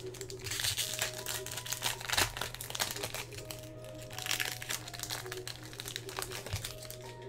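Foil trading-card pack wrapper crinkling and tearing as it is opened by hand and the cards are slid out, over quiet background music.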